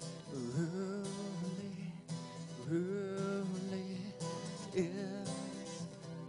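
Strummed acoustic guitar with a man singing over it: two long held notes with vibrato, then a short third phrase near the end.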